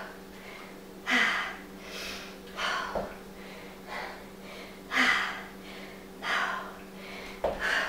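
A woman breathing hard from exertion, a forceful huff about every second, while doing lunges with dumbbells. A couple of dull thuds of a foot landing on the floor come in between.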